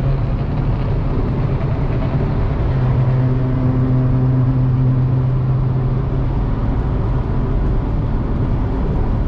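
Steady engine and tyre noise inside a moving car's cabin at freeway speed, with a low steady hum that grows stronger for a few seconds in the middle.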